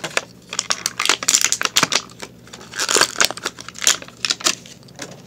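Thin clear plastic wrapping crinkling and crackling as it is handled and pulled off, in several bursts of rustling, the strongest a little after a second in and again around three and four seconds in.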